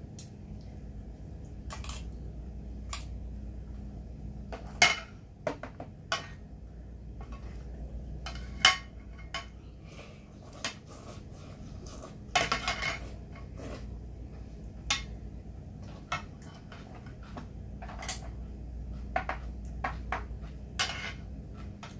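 Metal tongs and chopsticks clinking against a stainless steel pot and bowls while ramen noodles are served and eaten: scattered single clinks with a short cluster about halfway through, over a low steady hum.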